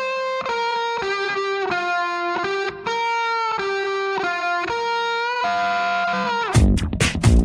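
Background music: a lone electric guitar playing a melody of single held notes, some bending in pitch. Near the end, drums and bass come back in with a steady beat.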